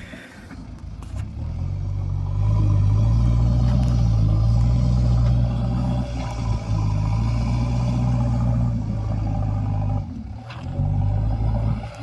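JCB 3DX Eco Xcellence backhoe loader's diesel engine rising in revs over the first couple of seconds, then running hard and steady as the machine digs. The revs drop briefly near the end and then come back up.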